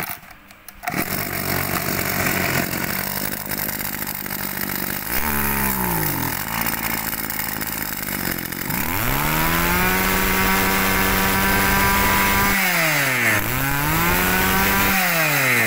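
Mitsubishi TM24 two-stroke brush cutter engine catching about a second in and idling. It is blipped briefly around five seconds in, then revved up and held high for several seconds, dropping and rising again twice near the end.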